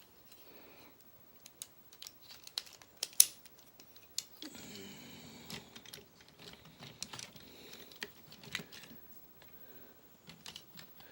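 Plastic clicks and clacks of a transforming robot toy's parts being handled and snapped together: scattered, irregular sharp clicks, the loudest about three seconds in.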